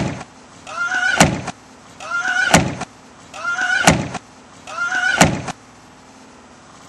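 Lid of a plastic wheeled recycling cart slammed shut five times, about a second and a third apart, each of the last four slams led by a short high squeal.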